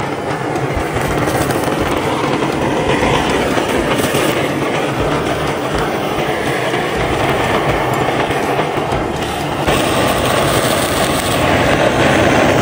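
Handheld butane blowtorch hissing steadily as its flame scorches a cow's hoof and hide, growing louder about ten seconds in.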